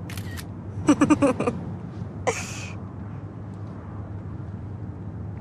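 A short, quick burst of laughter followed by a breathy exhale, over the steady low hum of a car cabin on the move.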